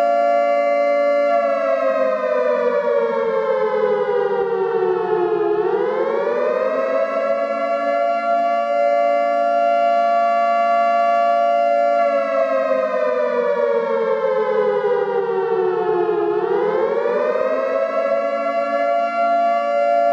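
Civil defense siren sounding a nuclear-attack warning: a steady multi-tone note that slowly slides down in pitch over about four seconds, then swings quickly back up and holds. The fall and rise happen twice.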